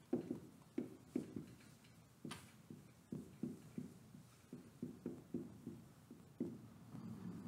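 Dry-erase marker writing on a whiteboard: a quick, irregular run of short marker strokes and squeaks as letters are written, with one sharper tap about two seconds in.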